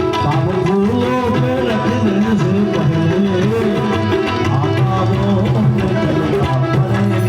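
Instrumental interlude of a Hindi devotional song: tabla playing under a melodic instrument line that glides up and down.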